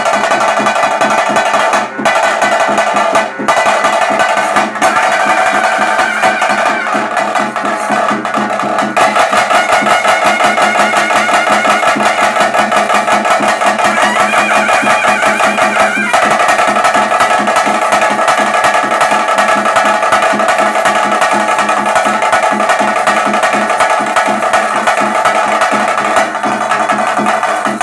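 Traditional Tulu vadya ensemble playing bhuta kola ritual music: fast, steady drumming under a sustained melody line. The playing dips briefly twice near the start.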